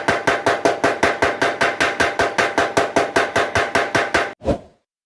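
Blacksmith's power hammer pounding in a fast, even rhythm, about six ringing blows a second, stopping about four and a half seconds in.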